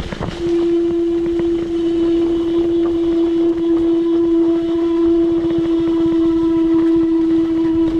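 Mountain bike giving out a loud, steady whine that holds one pitch, starting about half a second in, over rough rumbling trail noise.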